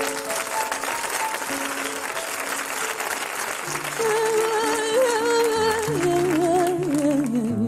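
Studio audience applauding over the closing music: piano-like notes first, then from about four seconds in a held melody with vibrato that steps downward as the applause thins near the end.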